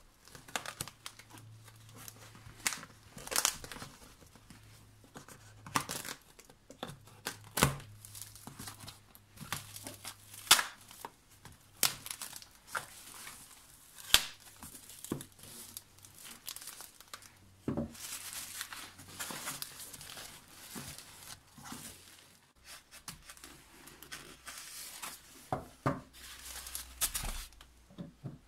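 A cardboard parcel being unpacked by hand: packing tape and plastic wrap ripped and torn, cardboard flaps pulled open and bubble wrap crinkling, in a long run of sharp rips and rustles.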